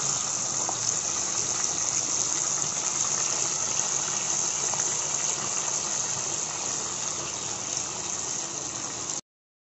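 Fish head halves frying in hot oil in a nonstick pan: a steady sizzle of bubbling oil, which stops abruptly near the end.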